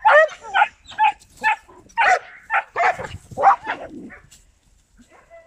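German shepherd puppies yapping in a rapid string of high-pitched barks, two or three a second. The barking dies down about four seconds in, and a few fainter yelps follow near the end.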